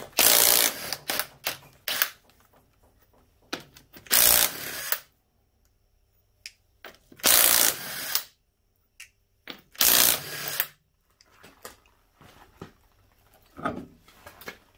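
Cordless impact wrench hammering wheel nuts loose: four short runs about three seconds apart, one per nut, with small clatters between as the nuts come off and the wheel is handled.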